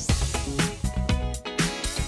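Upbeat funk-style background music with a steady drum beat.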